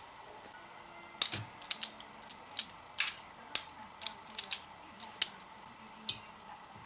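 An irregular run of sharp clicks, about fifteen in all over some five seconds, from a hand wire stripper working the end of a high-voltage ignition lead.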